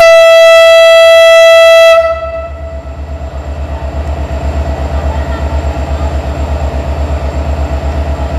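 Locomotive horn sounding one loud, steady, single-note blast of about two seconds from a train approaching the station. It is followed by a low, pulsing rumble of about five beats a second.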